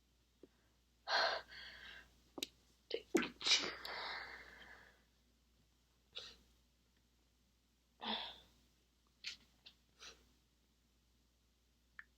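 A woman's stifled sneezes: a run of short, held-back sneezes, the loudest bunched in the first few seconds with a breathy rush after them, then several quieter short ones further on.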